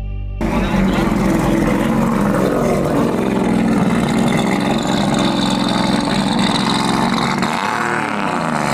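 Car engine running loudly at close range, a rough steady drone with its pitch dipping and climbing again near the end.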